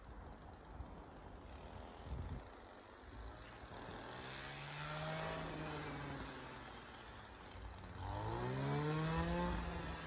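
An unseen train's drive sound from a rail line: a low pitched hum with many overtones that begins about four seconds in, rises and falls in pitch, then climbs again near the end and holds steady as it grows louder.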